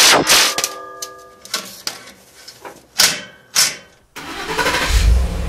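A cordless impact driver finishes tightening an exhaust clamp, then come a few short sharp knocks. About four seconds in, the 5.0 V8 of a 2011 Ford F-150 cranks and catches through its stock exhaust, settling into a steady deep idle.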